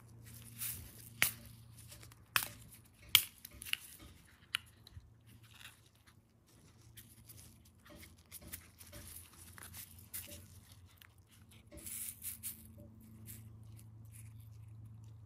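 A clear plastic compartment case of small gold metal nail-art studs being handled with gloved hands: several sharp plastic clicks in the first few seconds, then lighter ticking and rattling as the tiny metal pieces shift in their compartments. A low steady hum runs underneath.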